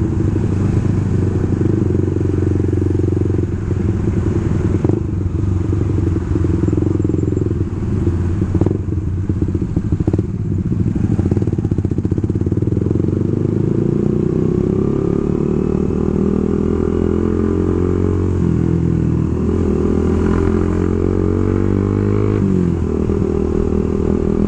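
Suzuki GSX-R150's single-cylinder engine running under way, its pitch climbing steadily through the second half as the bike accelerates. A few brief knocks sound in the first half.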